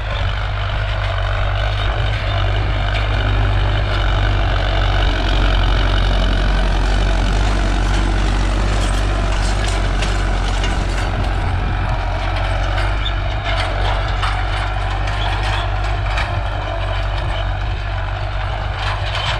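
Farmtrac 6055 tractor's three-cylinder diesel engine running steadily under load at about 1700 RPM in high second gear, pulling a disc harrow. It is loudest as the tractor passes close, with rattling and clanking from the harrow around the middle.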